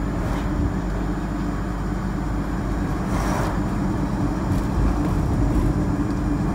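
Steady engine and road noise of a car driving, heard from inside the cabin, with a brief hiss about three seconds in.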